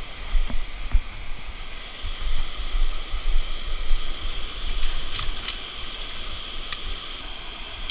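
Steady rush of running river water, with wind buffeting the microphone in uneven low gusts and a few light clicks.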